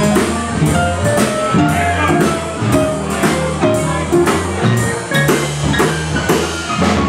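Small jazz-blues band playing live: electric keyboard, electric guitar, upright bass and drum kit, with a steady beat on the drums and a moving bass line.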